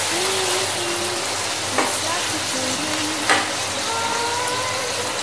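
Chicken pieces frying in hot oil in a pan with a steady sizzle, stirred with a metal spoon that knocks against the pan twice, a little under two seconds in and again at about three seconds.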